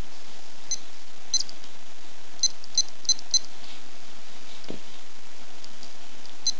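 Casio F-E10 digital watch letting out about seven short, high squeaky chirps at irregular intervals, four of them in quick succession near the middle, over a steady hiss. The squeaks come on their own, which the owner thinks is a sign of a dying battery.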